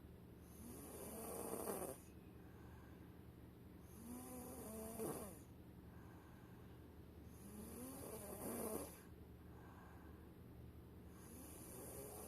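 A young boy snoring in his sleep: four snores, about one every three and a half seconds, each building up and then stopping abruptly.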